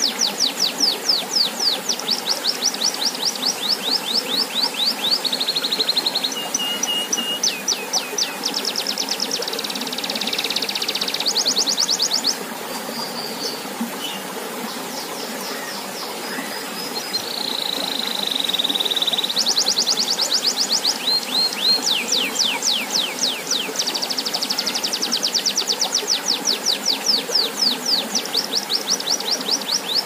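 Domestic canary singing: rapid trills of repeated falling notes, switching to a new trill every few seconds, with a quieter stretch of held trills in the middle. Underneath runs the steady splash of a fountain's stream of water pouring into a pond.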